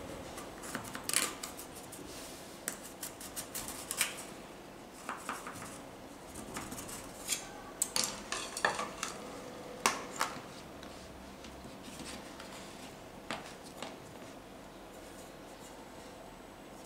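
A knife blade scraping and clicking against the inside wall of a metal cake tin as it is run around the edge to loosen a baked cake: scattered light taps and short scrapes, thinning out after about thirteen seconds.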